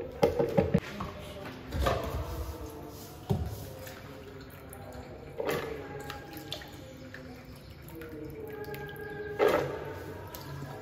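Soaked, peeled beans dropped by the handful into a blender jar of water: a handful of short splashy plops with knocks against the jar, the loudest in the first second and another near the end.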